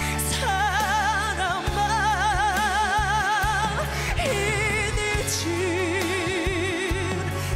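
A woman singing with instrumental accompaniment, holding long notes with wide, even vibrato; in the second half she settles onto a lower sustained note.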